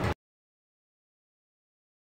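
Silence: the sound track cuts out completely, with no room tone at all.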